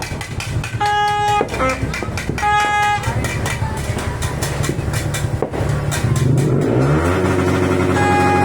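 Yamaha R15 single-cylinder motorcycle engine running, revved up about six seconds in and held at higher revs. A horn toots twice briefly in the first three seconds.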